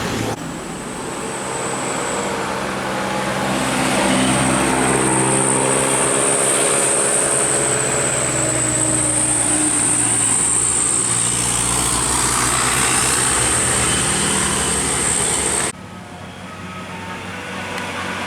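A bus's engine running with a high steady whine, getting louder about four seconds in; the sound cuts off suddenly a few seconds before the end, leaving a quieter background.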